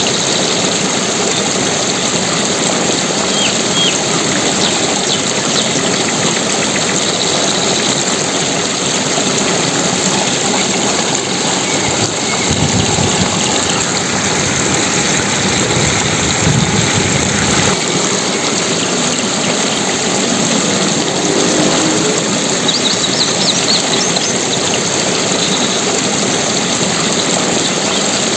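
Steady rushing water, a dense unbroken roar like a waterfall or fast stream, slightly heavier and deeper for a few seconds around the middle.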